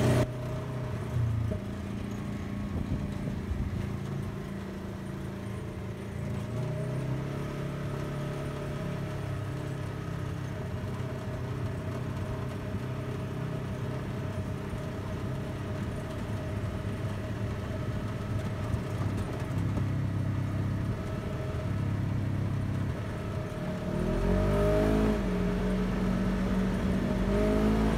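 Off-road buggy engine running as it drives, its pitch shifting up and down in steps. The revs rise about 25 seconds in and again near the end, with a louder low rumble over the last few seconds.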